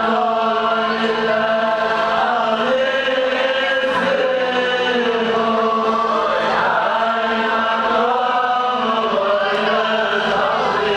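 A large crowd of Hasidic men singing a melody together in unison, with long held notes that glide from one to the next.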